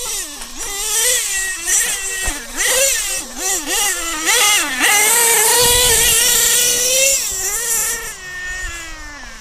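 HPI Savage X RC truck's Clockwork-modded Picco .28 P3 two-stroke nitro engine revving in quick throttle blips, then held at high revs for about two seconds past the middle before backing off and fading as the truck runs away.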